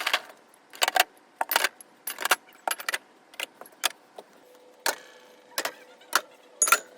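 Containers and food items clinking and knocking as they are picked up and set down while a fridge is being organized. The clatters come in an irregular run, roughly two a second.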